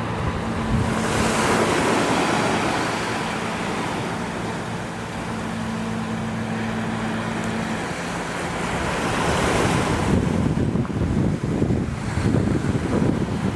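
Surf breaking and washing up the beach, swelling twice, with wind buffeting the microphone near the end. A steady low hum runs under the first half and stops about eight seconds in.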